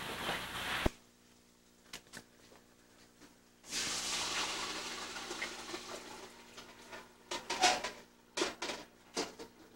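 Crushed tomatoes being poured into a pot of sautéed mirepoix: a hiss starts suddenly partway through and fades over about three seconds. It is followed near the end by a few sharp clanks of the metal bowl against the pot.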